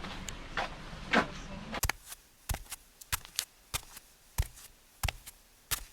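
Steady background noise with two short gliding sounds, cut off sharply about two seconds in. A quiet room follows, with a string of short, sharp knocks, about two a second and unevenly spaced.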